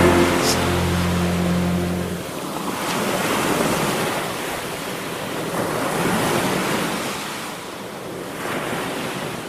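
Sea waves washing onto a beach, swelling and ebbing about every two to three seconds and fading out near the end. A held chord at the end of a music track dies away in the first two seconds.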